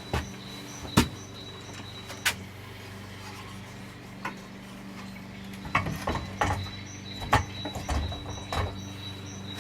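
Scattered knocks and clunks from handling a Can-Am motorcycle engine and frame as the engine is worked out, over a steady hum. A sharp knock about a second in is the loudest, and from about six to nine seconds comes a busier run of clunks and rattles.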